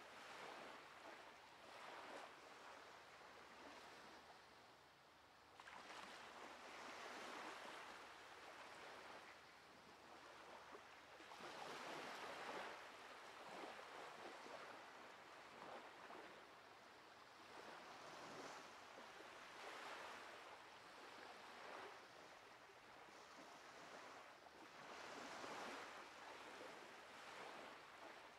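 Faint sea surf: waves washing on a sandy shore, swelling and fading every few seconds.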